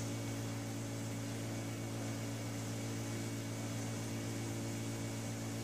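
Steady low hum with an even faint hiss, unchanging throughout: kitchen room tone, with no distinct event.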